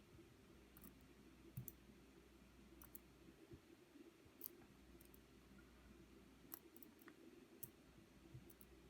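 Near silence with faint, scattered clicks of small metal lock-core parts being handled and set down, over a low steady hum.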